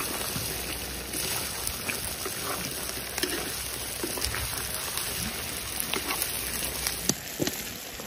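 Duck meat and potatoes sizzling in hot oil in a wok over a wood fire, a steady frying hiss with scattered small crackles as a spatula stirs them.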